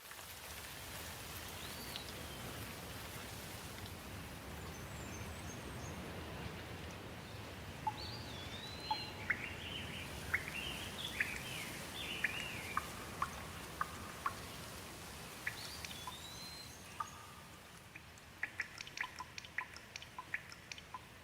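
Steady rain with birds chirping through it. Near the end the rain eases and a quick, uneven patter of individual drips takes over.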